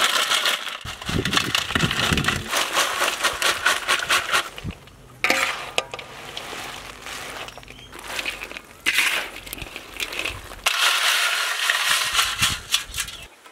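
Crisp fried potato fingers tipped into a wok and tossed with a metal spatula: a dry crackling clatter of potatoes against metal, coming in several spells with short quieter breaks between.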